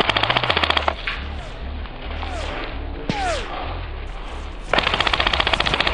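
Airsoft gun firing on full auto: a rapid, even clatter of shots in a burst lasting about a second, then a second burst starting near the end.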